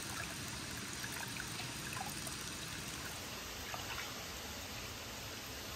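Hot spring water pouring steadily from a wooden spout into an open-air bath, trickling and splashing. About three seconds in, it gives way to an even rush of flowing water from a waterfall behind the bath.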